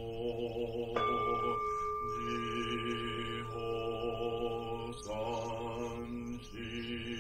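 A single male voice chanting a Japanese Zen Buddhist liturgy in a steady, even monotone. About a second in, a large bowl bell is struck once and rings on steadily under the chant, with a short sharp tap about five seconds in.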